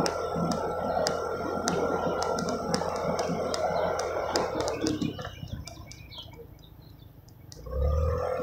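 Small gasoline engine of a ride-on vehicle running at a steady pitch, with a regular ticking about twice a second. It eases off and goes quiet about five seconds in. A short low thump comes near the end.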